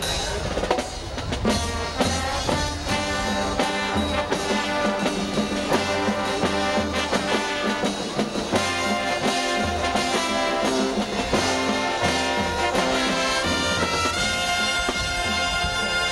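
College marching band playing: brass section holding full chords over a steady drum-line beat.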